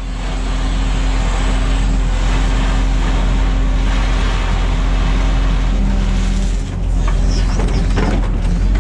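Excavator's diesel engine running steadily under work, with a low hum and a constant tone, dipping briefly about two-thirds of the way through.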